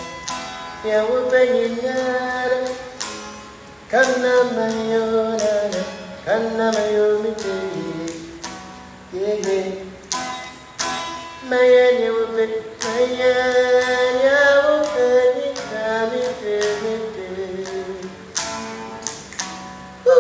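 A man singing a melody with long held notes, accompanying himself on a strummed acoustic guitar.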